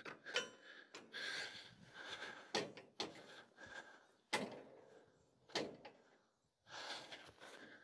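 Gravity tilt trailer deck, loaded with logs, tilting down after its hydraulic valve is opened: a few faint, sparse knocks and creaks as the deck and logs settle, with light breathing between.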